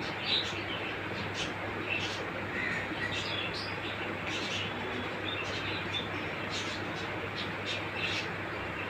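Scattered short, high chirps, about one every second, over a steady background hiss.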